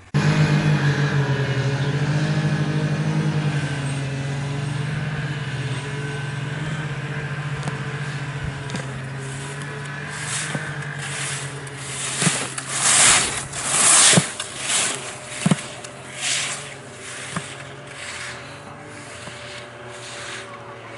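Snowmobile engine running steadily, slowly fading. From about ten seconds in comes a series of short, loud scrapes, roughly one a second, from slalom skis carving turns on hard snow.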